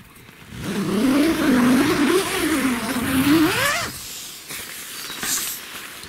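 Tent door zipper pulled open, heard as a rasping hiss, with a loud wavering drawn-out tone over it that rises in pitch just before it stops, a little under four seconds in.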